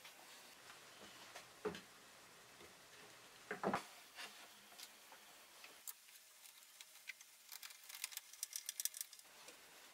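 Faint workshop handling sounds from a wooden jigsaw circle jig being set up on a board: a couple of knocks about three and a half seconds in, then a run of quick small clicks near the end as a screwdriver turns the jig's pivot screw.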